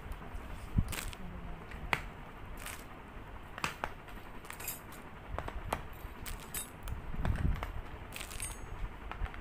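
Scattered clicks, taps and clatter of plastic and metal as a hand mixer is handled and its wire whisks and beaters are slotted into the holes of its plastic stand. The sharpest clicks come about a second and two seconds in, with a duller thump about seven seconds in.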